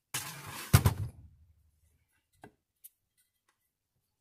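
Steel housing of a bus air brake actuator scraping as it is turned over on a metal workbench, with one heavy knock about three-quarters of a second in as it is set down, then two faint clicks.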